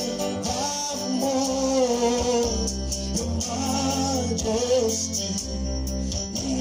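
Gospel worship song: voices singing long, gliding melody lines over an instrumental backing with steady bass notes.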